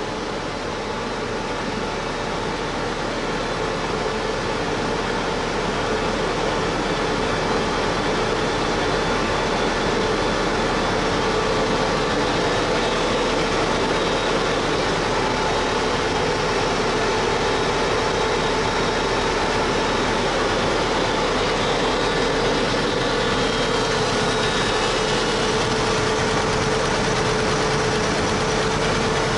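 Rotax engine of a homebuilt helicopter running at a steady speed. It grows a little louder over the first few seconds, then holds level.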